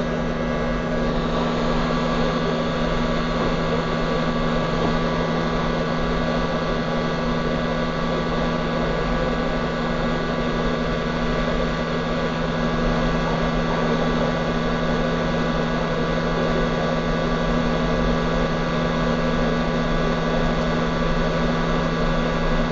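Hot air rework station blowing steadily with a constant hum and airy hiss, heating the solder to refit a small resistor on a laptop motherboard.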